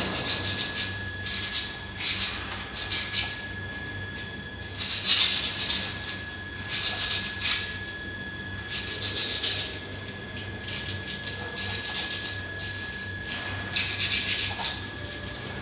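Sandpaper (120 grit) rubbed by hand over an engine valve to clean it: rapid back-and-forth scratchy strokes in bursts of about a second, with short pauses between.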